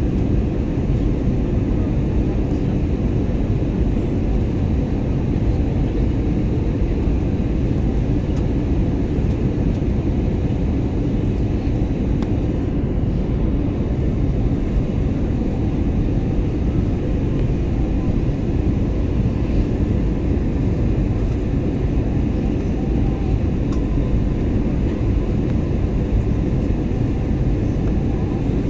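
Airliner cabin noise in flight: the steady low rumble of the jet engines and the air rushing past the fuselage, heard inside the passenger cabin, even and unchanging throughout.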